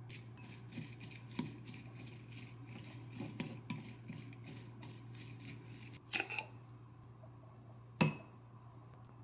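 Chopsticks tossing shredded cabbage in a ceramic bowl: a quick run of light scraping and clicking strokes. Then a few clicks, and near the end one sharp knock of a spoon against the bowl. A steady low hum runs underneath.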